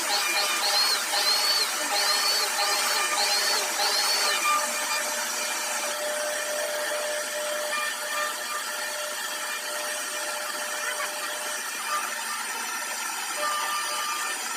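CNC router spindle running and carving a wooden door panel. For the first four seconds a short high whine rises and falls about twice a second, then the machine runs with a steadier whine.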